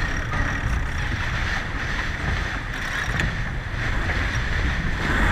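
Wind buffeting the microphone and water rushing along the hull of a sailboat under way, a steady rumble and hiss, with a faint click about three seconds in.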